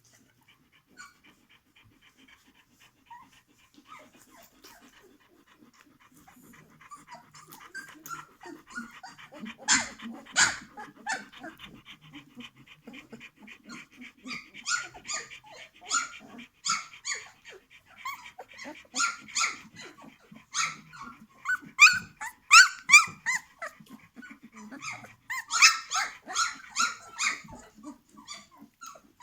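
A litter of 17-day-old puppies squeaking, whining and grunting in many short calls. The calls are sparse at first and become frequent and louder about a third of the way in.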